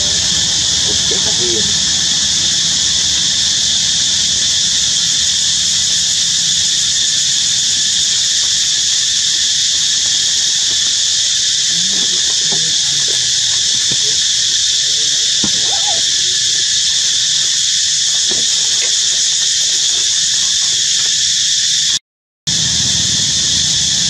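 A loud, steady high-pitched hissing drone, with a few faint short squeaks beneath it in the middle; the sound cuts out for a moment near the end.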